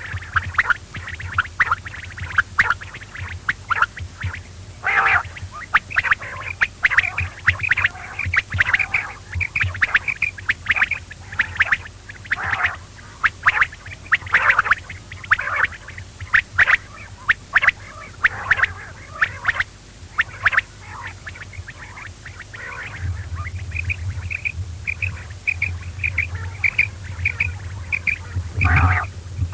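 Quail calling over and over in short, repeated notes, with a steady low hum underneath that gets louder over the last few seconds.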